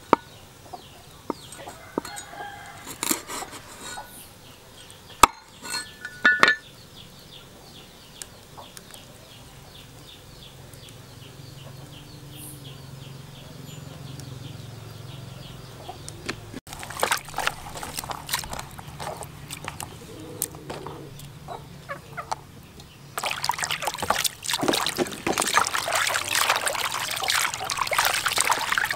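Several sharp knocks of a steel cleaver striking a wooden chopping board in the first few seconds. From about three-quarters of the way in, loud water sloshing and splashing as hands wash skinned frogs in a plastic basin.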